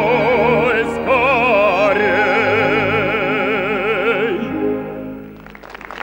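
Male operetta singer holding the song's long final note with wide vibrato over an orchestra. The note dies away about four and a half seconds in, and a few faint clicks follow near the end.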